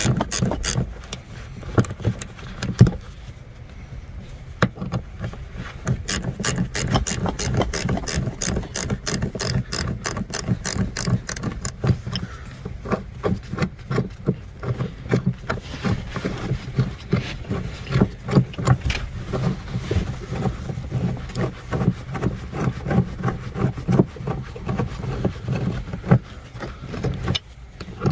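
Socket ratchet clicking in long runs of rapid strokes while working a car seat-belt anchor bolt, with brief pauses between runs. A steady low hum runs underneath.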